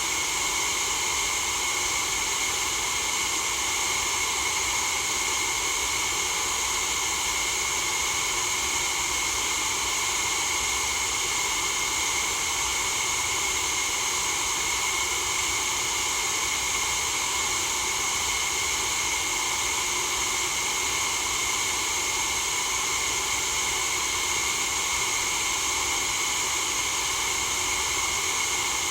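Steady, unchanging hiss of a white noise track for sleep, with most of its energy in the upper frequencies.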